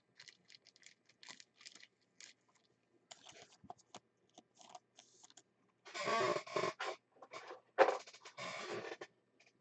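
Hands handling a trading card and its plastic holders: faint scratches and clicks, then louder scraping and rustling from about six seconds in.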